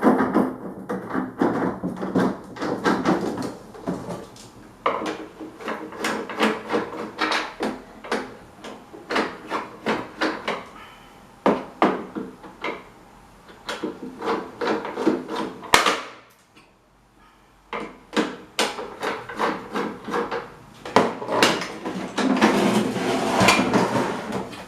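Hammer striking repeatedly, in irregular runs of sharp blows, while parts of an old standing electric fan are worked on. The blows stop briefly about two-thirds of the way through, then resume.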